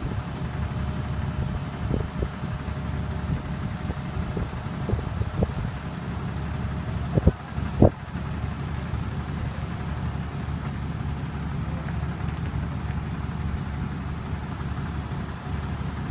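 Vehicle engine idling steadily, with a few short knocks; the two loudest come about seven and eight seconds in.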